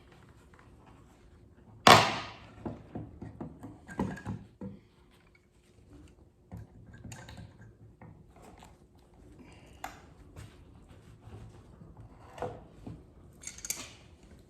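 Hand-tool work on a wooden birdhouse, pliers pulling out finish nails: one sharp, loud knock about two seconds in, then scattered small clicks and taps.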